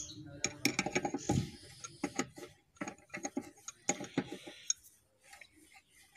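Quick metal clicks and scrapes of pliers gripping and turning a chrome wash-basin tap, working loose its worn disc cartridge, which has gone slack and lets the tap drip. The clicking is dense at first and thins out about five seconds in.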